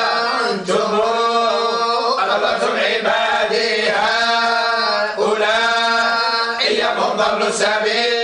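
Collective Quran recitation in the Moroccan style: many voices chanting together in unison, holding long, drawn-out notes that bend slowly in pitch. The phrases are broken by short pauses about every one and a half to two seconds.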